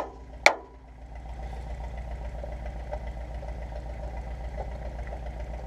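An engine idling steadily, with two sharp metallic clinks in the first half second.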